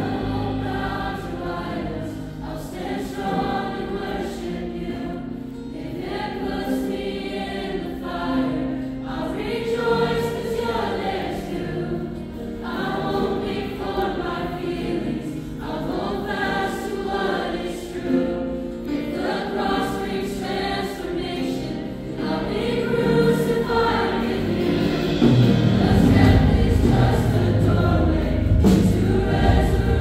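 A choir with lead singers on microphones sings a worship song live over its accompaniment, growing louder with a heavier bass near the end.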